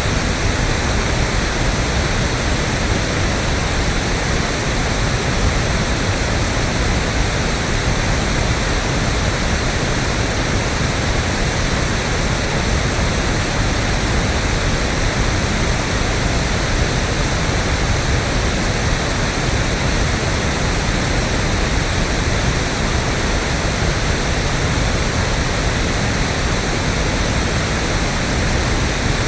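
Steady, unchanging pink noise: electronically generated random static with more weight in the lows than white noise, like a mix of sea surf and a detuned TV set.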